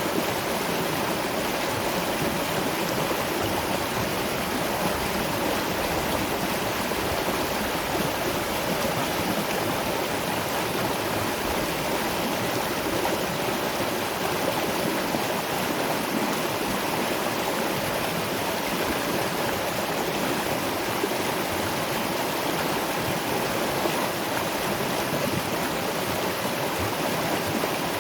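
Water of a small waterfall and stream rushing over rocks, a steady even rush without a break.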